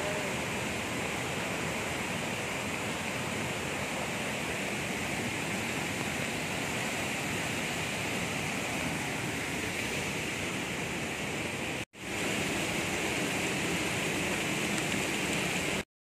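Steady rushing of a flood-swollen river in spate, muddy water churning over rocks and small falls. A brief break about four seconds before the end, then the rushing resumes and cuts off abruptly.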